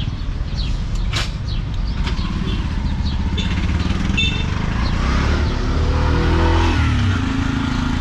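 Street traffic with a small vehicle engine running close by, its note rising about five to seven seconds in as it speeds up.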